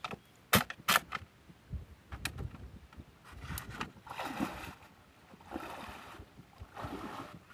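A wire-mesh fish trap set down into a wooden canoe: two sharp knocks about a second in. Then a man wading through swamp water and weeds, a swishing splash about every second and a half.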